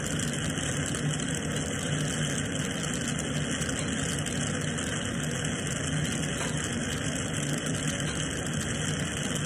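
Glassblowing bench torch flame burning steadily: a constant rushing noise with a low hum underneath.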